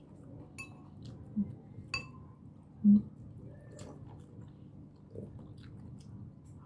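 Close-miked chewing of adobong pusit (squid stewed in its ink) and rice, eaten by hand, with a few small wet mouth clicks. A short hummed "mm" comes about three seconds in.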